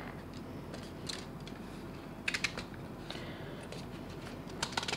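Plastic airsoft M4 magazine being handled and turned over, giving a few light clicks and scrapes, with a quick cluster of clicks a little over two seconds in.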